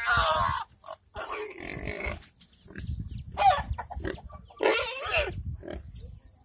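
Domestic pigs at a feeding trough squealing and grunting in several short, pitched bursts about a second apart.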